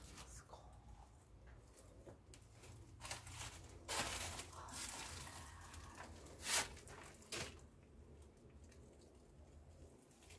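People moving about in a small stone chamber: faint scuffs and rustles of footsteps and clothing on the gritty stone, with a sharper brush about six and a half seconds in.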